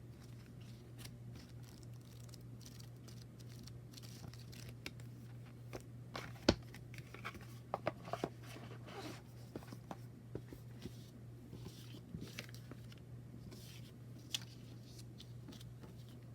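Oracle cards and their packaging being handled: scattered paper and cardstock rustles, slides and light taps, busiest in the middle, with one sharper click about six and a half seconds in. A steady low hum runs underneath.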